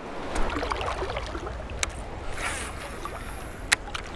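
Running river water under a steady low rumble of wind on the microphone, with two sharp clicks, one about two seconds in and a louder one near the end.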